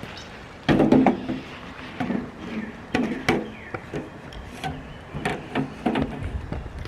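A run of irregular knocks, clicks and rubbing from camp kitchen gear being handled, with the loudest cluster about a second in.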